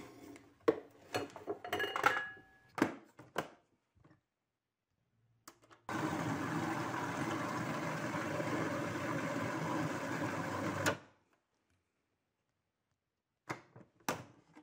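Magimix food processor running for about five seconds, blending avocado, cocoa and lime into a thick chocolate spread, then stopping suddenly. Before it starts come sharp clinks and knocks as things go into the plastic bowl and the lid is fitted.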